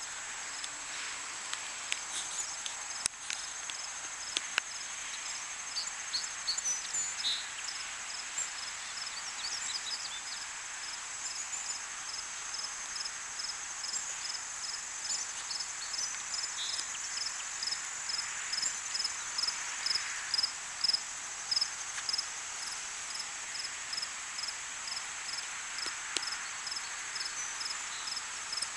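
Crickets and other insects singing in a grassy field: a steady high trill, with a short chirp repeating about twice a second over it. A few brief bird-like chirps come in the first third.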